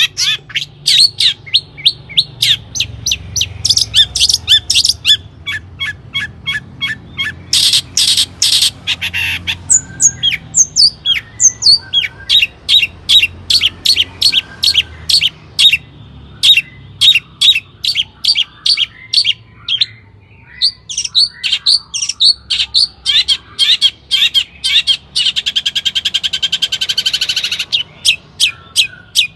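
Long-tailed shrike singing a fast, unbroken string of sharp, high repeated notes. Harsh rasping rattles break in about a quarter of the way through and again near the end.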